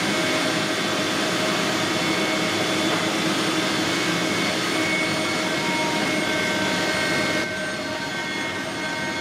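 A workshop machine running with a loud, steady whirring rush and a few faint steady whines over it, easing somewhat near the end.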